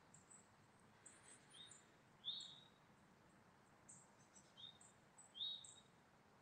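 Birds calling faintly: a short two-note call, the second note louder, heard twice, with thin high chirps scattered between.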